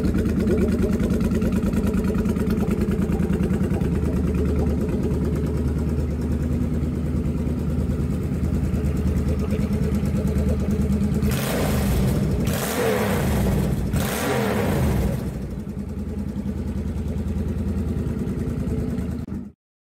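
Motorcycle engine idling steadily, then revved three times in quick blips about two-thirds of the way in before settling back to idle. The sound cuts off suddenly near the end.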